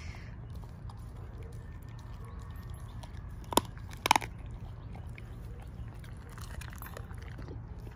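Doberman chewing and crunching on the bones of a raw squirrel's head, with two sharp cracks a little past halfway.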